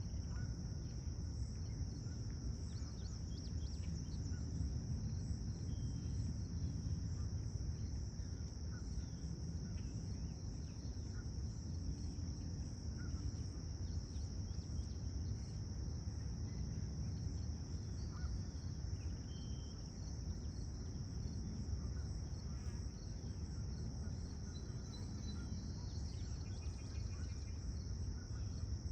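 Steady high-pitched insect chorus that never breaks, over a continuous low rumble, with a few faint short chirps here and there.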